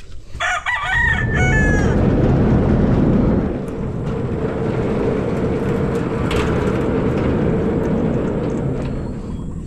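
A rooster crows once at the start. About a second in, a loud, steady low rumble takes over and runs on.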